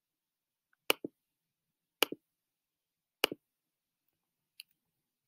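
Computer mouse clicks: three sharp press-and-release clicks about a second apart, then one faint click near the end.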